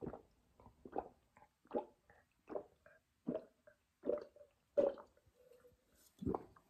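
A person gulping down a cup of water, with about eight separate swallows, a little under one a second and a longer pause before the last.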